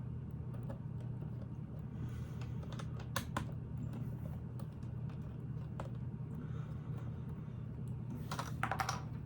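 Small plastic clicks and taps of Lego plates being handled and pressed onto the model, with a quick cluster of clicks near the end, over a steady low hum.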